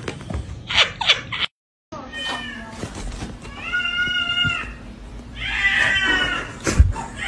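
A cat meowing loudly three times from about two seconds in, a short call followed by two long, drawn-out ones, with a sharp click near the end.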